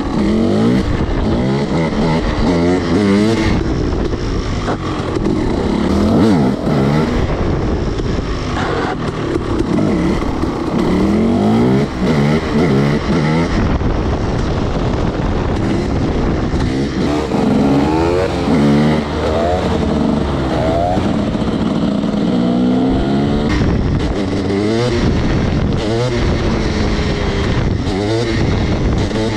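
300 cc two-stroke dirt bike engine revving hard, its pitch climbing and dropping again and again as the rider accelerates, shifts and rolls off the throttle.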